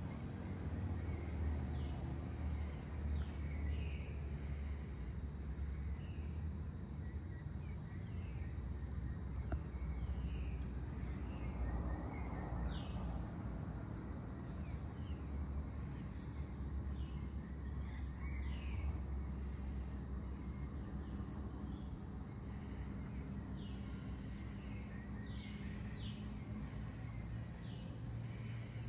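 Pre-dawn outdoor ambience: a steady high-pitched insect chorus with many short bird chirps scattered throughout, over a low steady rumble.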